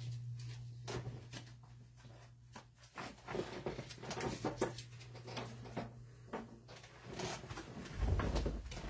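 Light clicks, taps and rustles of trading cards and plastic card holders being handled and sorted, over a steady low hum.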